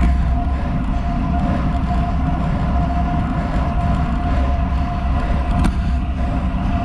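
Wind buffeting a GoPro's microphone on a road bike ridden at about 37 km/h, over tyre noise from Roval Rapide CLX50 carbon wheels on asphalt, with a steady high hum. A single click sounds near the end.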